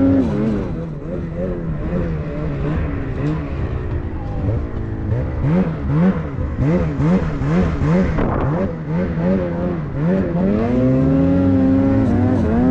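Snowmobile engine revving under throttle, its pitch rising and falling in quick uneven swells, then climbing and holding high near the end.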